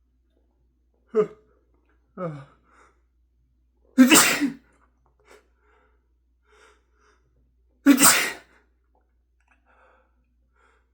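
A man sneezing twice, about four seconds apart, the sneezes induced by tickling his nostril with a clothing tag. Each sneeze comes loud and sudden, and two short voiced sounds with a falling pitch come before the first.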